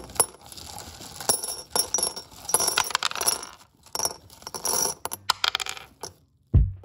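Small translucent gems poured into a glass mason-jar mug, a rapid clattering stream of clinks against the glass in several spurts that stops about six seconds in. A low thump follows near the end.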